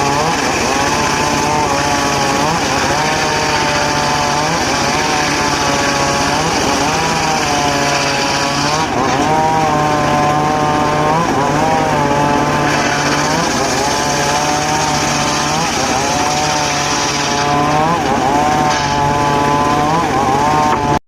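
Motor-driven circular saw running while cutting teak wood, its pitch sagging and recovering every couple of seconds as the blade takes load.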